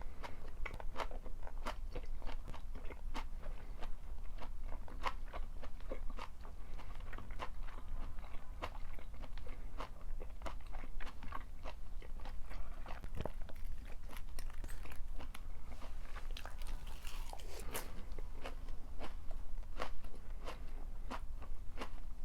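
Close-up chewing and biting of a stir-fry of shredded pork and napa cabbage: a steady run of crisp crunches, with a longer hissing, rustling stretch about seventeen seconds in.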